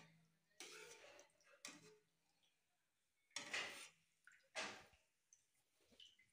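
Perforated steel skimmer scraping and knocking against a steel kadai of frying oil as fried sev is stirred and lifted out, in about four short scrapes, the loudest about three and a half seconds in.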